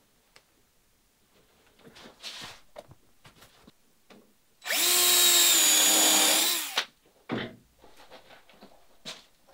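Cordless drill driving a screw through a wooden ribband into a boat mold, its motor running for about two seconds before stopping. Light knocks from handling the wood and tools come before it, and a thump comes just after.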